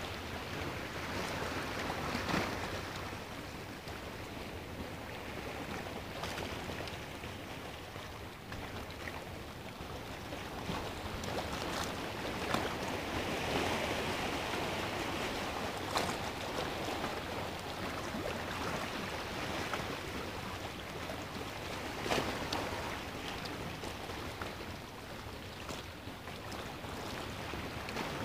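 Sea waves washing and breaking against rocks, swelling and easing, with a few sharp clicks now and then.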